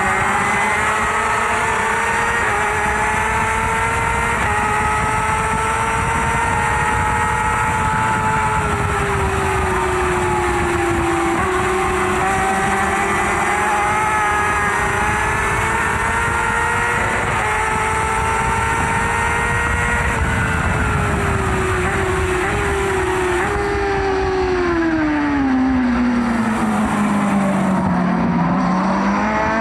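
Excavator running, its engine and hydraulics giving a steady whine whose pitch slowly rises and falls, dropping lower near the end and climbing back.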